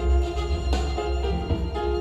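Instrumental music played back through Edifier active bookshelf speakers and picked up by microphones: sustained violin-like string notes over a heavy, steady bass, with the notes changing every half second or so.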